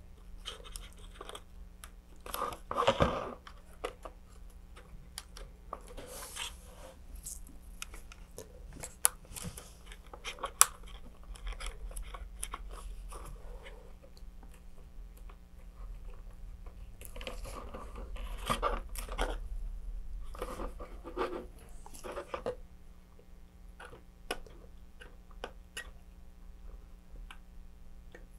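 Hand-work noise of nitrile-gloved hands and a wooden stick pressing epoxy clay into the gaps of thin plastic fin fairings: scattered rustles, scrapes and light clicks, with two sharper clicks near the middle, over a faint steady hum.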